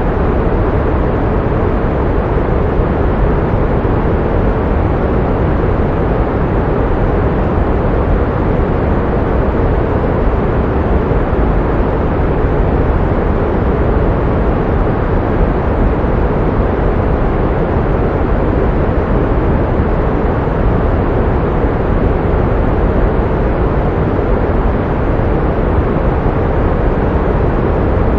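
Pink noise: a steady, unchanging hiss weighted toward the deep end, with no tones or events in it.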